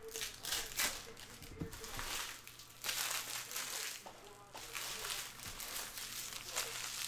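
Crinkling of a foil trading-card pack wrapper and cards being handled, in several spells of rustling with short gaps between them.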